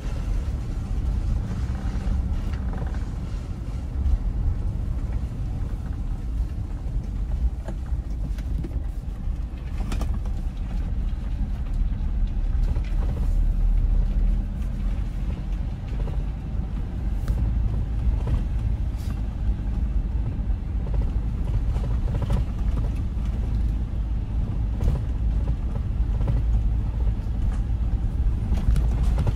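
Car driving, with a steady low road and engine rumble and a few light knocks from the road.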